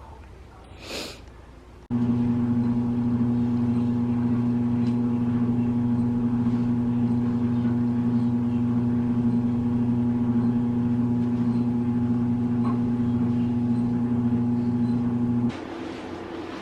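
A loud, steady, even-pitched electric or mechanical hum that switches on about two seconds in and cuts off abruptly near the end.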